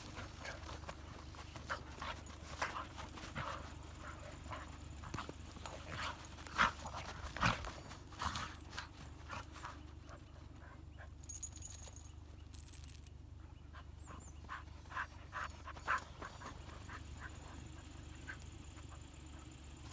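Two Hokkaido dogs play-fighting in snow, making a string of short, irregular dog noises that come thick in the first half and thin out later. It is rough play, not a real fight.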